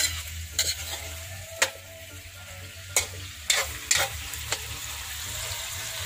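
Metal spoon scraping and knocking against a wok as pieces of squid are stirred, over a steady sizzle of frying. About seven sharp scrapes and knocks come in the first four and a half seconds, then only the sizzle goes on.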